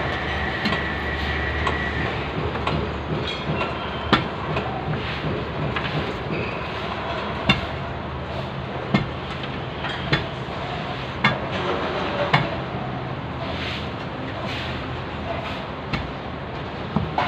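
Construction site noise: a steady rumble of machinery, broken by sharp knocks that come about once a second for a stretch in the middle. A thin steady whine runs for the first two seconds.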